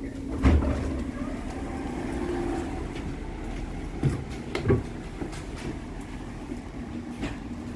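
Inside a standing Stadtbahn light-rail car: a steady low hum from the car's equipment, with a heavy thump about half a second in as the passenger doors open. Two more knocks follow a little after the middle.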